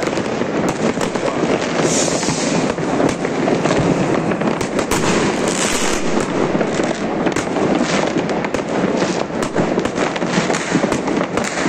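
Many fireworks and firecrackers going off across a city at once: a dense, unbroken crackle full of sharp bangs, with a couple of brief hisses.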